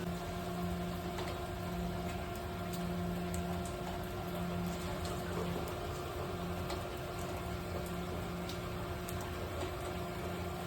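Hot water spraying steadily out of the corroded top of a failed expansion tank, a constant hiss with water running off, over a low machine hum that swells and fades about once a second.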